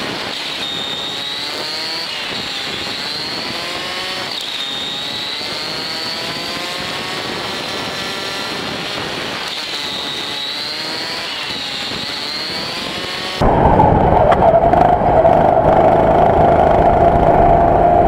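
Go-kart engine running on track, its pitch climbing and dropping repeatedly as the kart accelerates and lifts for corners. About thirteen seconds in, the sound jumps abruptly louder, with a heavy low rumble and a steady engine note that rises slowly.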